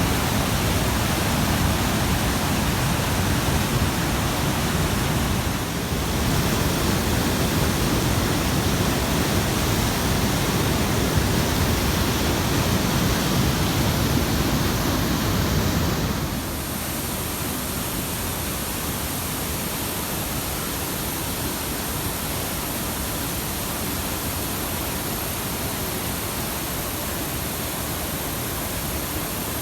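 Rushing water of river cascades, a steady wash of noise that drops abruptly in level and loses much of its low rumble about sixteen seconds in.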